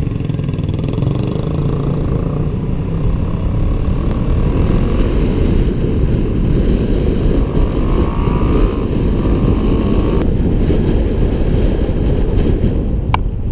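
Steady rumble of wind and road noise heard from a car driving in traffic, with a faint engine tone rising in pitch partway through and a single sharp tick near the end.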